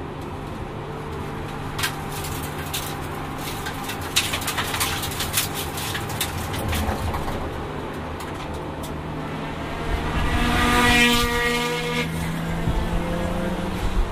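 Single-turbo RB26 straight-six of a Nissan Skyline R32 GT-R heard from inside the stripped race cabin, lapping on low boost. Sharp clicks and rattles come through the middle, and the engine note swells loudest about eleven seconds in.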